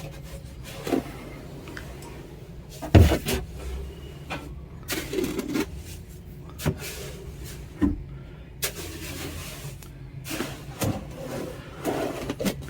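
Sand in a small coop container being scraped and levelled with a hand tool: irregular scraping strokes and knocks, several seconds apart, over a steady low hum.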